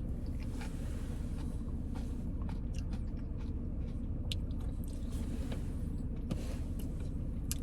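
Steady low rumble of a car running, with a faint steady hum, and scattered faint crunching clicks of someone chewing ice cream with big Oreo cookie pieces.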